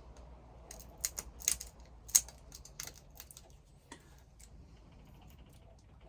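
Sharp clicks and taps from handling a headlamp switch and its wiring connector: a quick cluster in the first three seconds, then a few fainter ones.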